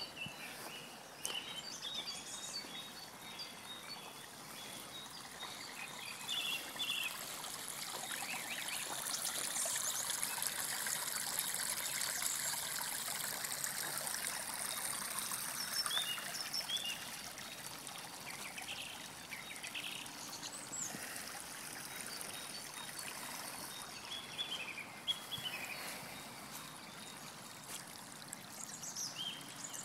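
Water trickling steadily over the stones and pebble bed of a shallow ornamental garden stream, a little louder in the middle stretch.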